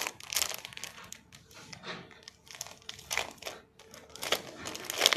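Clear plastic packaging bag crinkling and rustling in irregular bursts as shirts are handled and pulled out of it, loudest near the end.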